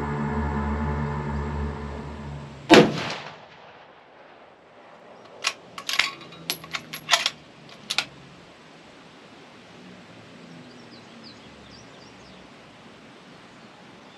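Background music fading out, then a single loud rifle shot from a scoped bench rifle, with a ringing echo trailing after it. A few seconds later comes a quick string of sharp clicks and clinks.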